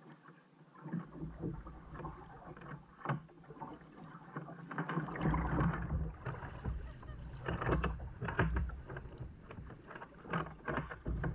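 Kayak paddle strokes: the blades dipping and splashing in calm sea water at an uneven pace. A low rumble of wind on the microphone comes in about a second in and grows louder from about five seconds.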